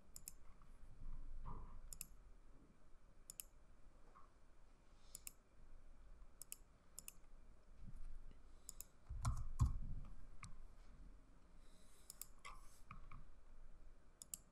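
Faint clicking of a computer mouse: about a dozen single clicks spaced irregularly. A dull low thump comes about nine seconds in and is the loudest sound.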